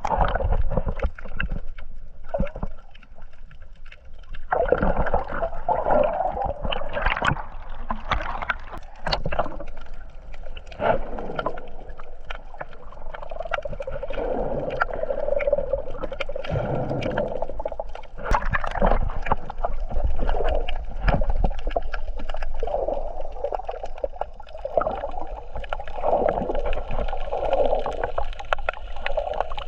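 Water sloshing and gurgling around a camera in the sea during snorkeling, muffled with a low rumble and many small clicks and knocks.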